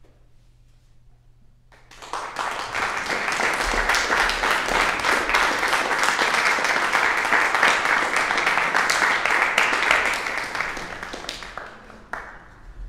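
Audience applause: after a brief quiet, clapping breaks out about two seconds in, holds steady, then tapers off near the end with a short final flurry.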